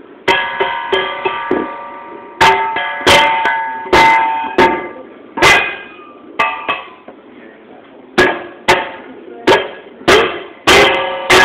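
Upturned stainless steel mixing bowl struck over and over at an uneven pace with a small wooden mallet, sometimes in quick runs of hits. Each strike rings with a metallic tone that fades over about a second.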